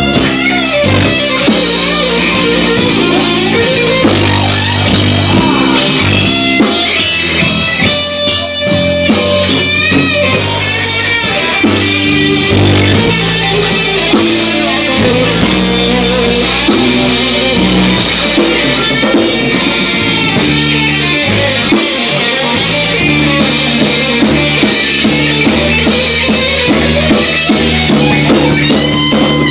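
Live rock band playing electric guitars over a bass line and drum kit.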